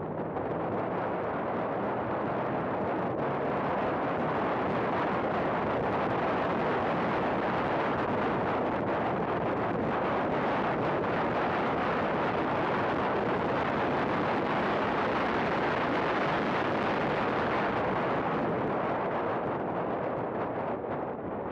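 Heavy wind rush over a hood-mounted camera on a race car at speed, with the car's engine running underneath. The rush grows as the car accelerates down a straight and eases near the end as it brakes for a corner.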